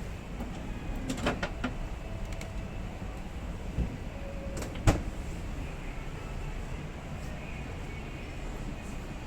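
Clicks and knocks of a multi-door refrigerator's doors and drawers being handled, over a steady low hum. There is a cluster of clicks a little over a second in and a sharp knock, the loudest sound, about five seconds in.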